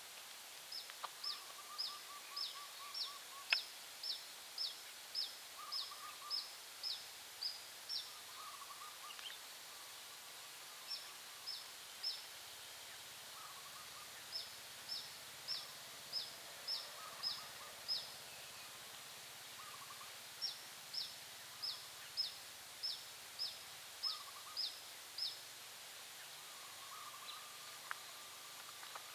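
Birds calling: one repeats short, high, downward-slurred notes about two a second in runs of several seconds with pauses between, while another gives short lower trills. A faint steady hiss of outdoor background lies underneath.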